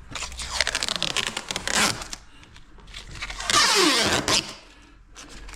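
Protective plastic tape being peeled off a window frame: a crackling, tearing run for about two seconds, then a louder rip a little past halfway.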